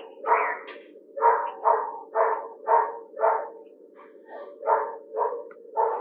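An animal calling in a run of short, harsh, loud calls, about two a second with a brief pause in the middle, over a steady low drone.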